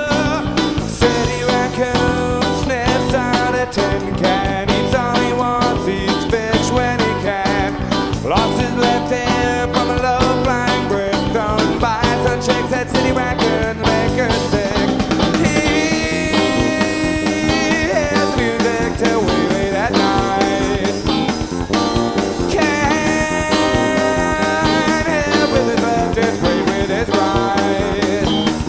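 Indie rock band playing live: electric guitar over a drum kit, with no pauses or breaks.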